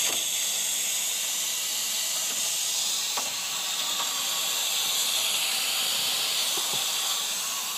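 Steady hiss of pressurised water rushing out through the open drain spigot of a residential tank water heater into a hose whose connection is leaking.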